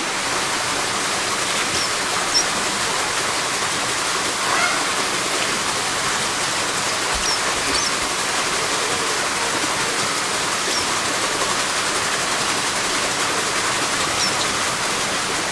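Steady rushing hiss of running water, with a few faint, high bird chirps now and then.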